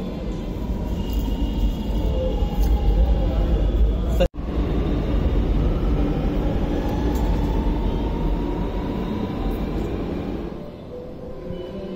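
Lucknow Metro train running, a steady low rumble with a faint motor whine that glides in pitch. The sound breaks off completely for a moment about four seconds in, then picks up again and eases off near the end.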